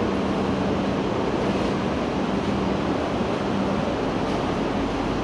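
E6 series Akita Shinkansen train creeping slowly along the platform as it comes in for coupling: a steady, even running noise of the train with a low hum that drops out about three seconds in.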